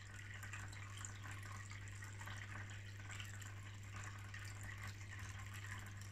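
Small terrarium water filter trickling and splashing a thin stream of water from its spout into a pool below, over a steady low hum.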